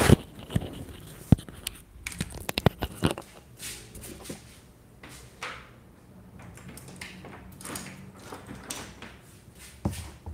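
Clicks, taps and knocks of small objects being picked up and set down as painting supplies are tidied, thickest in the first three seconds. Softer rustling and handling noises follow over a faint low hum.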